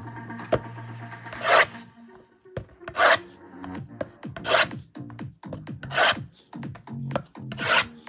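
A blade slicing through the plastic shrink wrap on sealed trading-card boxes: five short strokes, about one every second and a half.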